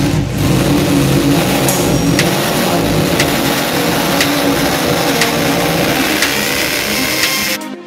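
Corded impact drill running steadily at full speed as it bores into a masonry wall, then cutting off near the end.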